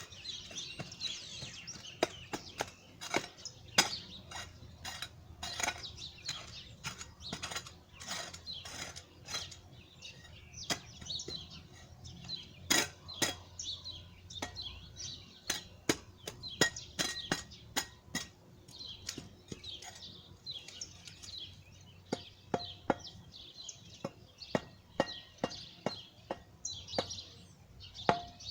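Irregular sharp knocks and taps of hand work on bricks, many strikes spread throughout, with birds chirping.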